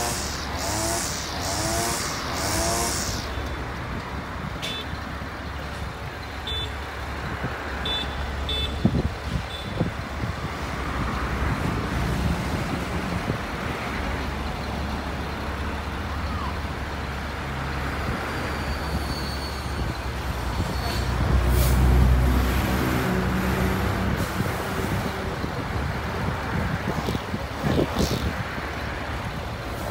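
Heavy diesel truck engine running steadily with a low hum, its pitch rising and falling in the first few seconds and swelling louder about two-thirds of the way through.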